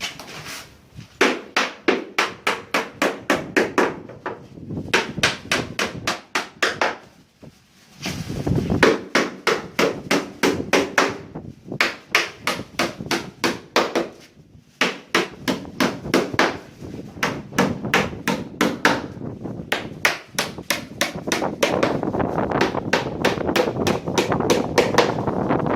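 Rapid hand hammering in carpentry work: a hammer striking wood about four times a second, in runs of several seconds broken by short pauses.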